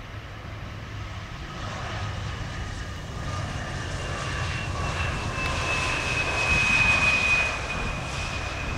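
Embraer E175 jet on its landing roll-out, its twin GE CF34 turbofans giving a jet rush with a low rumble and a steady high whine. It grows louder to a peak about seven seconds in, then eases slightly.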